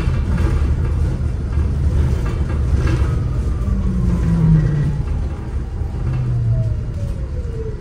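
Inside a moving city bus: a steady low rumble from the bus and road, with a thin whine that falls steadily in pitch from about three seconds in.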